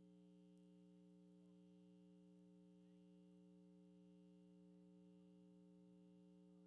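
Near silence with a faint, steady electrical hum at several fixed pitches, typical of a sound system's mains hum.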